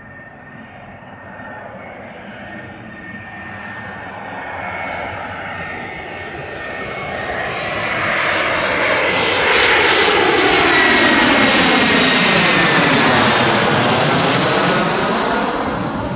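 Airbus A320's CFM56 jet engines on final approach to land, growing steadily louder with a high whine over the jet noise. The sound is loudest as the airliner passes closest about two-thirds of the way in, where the noise sweeps down and back up in pitch, and then begins to fade.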